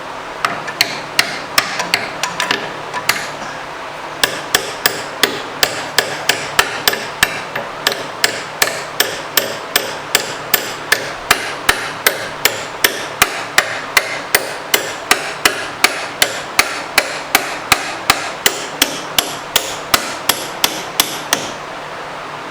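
Steady hammer blows on the rusted-in tailstock of a Monarch 10EE lathe, about three a second. There is a brief pause about three seconds in, then the hammering keeps on until near the end.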